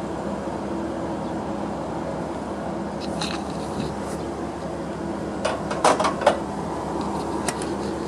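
Steady street and railside background noise at a closed railway level crossing. A few sharp clicks come about three seconds in, and a louder cluster of knocks and clicks comes around six seconds.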